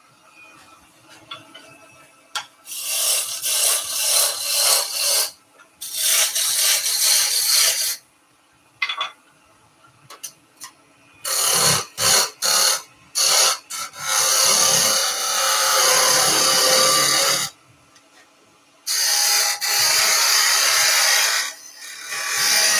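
Lathe-turning tool cutting a small spinning wooden spindle down to its final diameter: a hissing, scraping cut in about five spells of one to three seconds, with a run of short cuts in the middle. A steady low hum of the lathe runs underneath.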